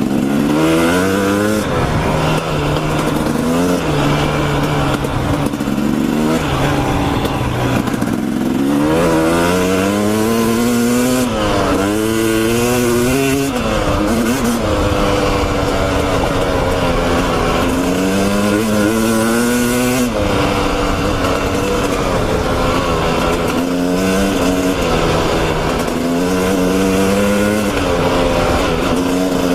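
Dirt bike engine running under a rider taking it easy on a rough dirt trail, its pitch rising and falling again and again as the throttle is rolled on and off.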